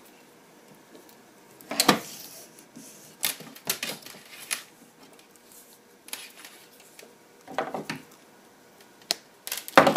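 Scattered clicks, knocks and rustles of hands handling red and black hook-up wire and a small metal-mesh switching power supply on a tabletop, with louder knocks about two seconds in and just before the end.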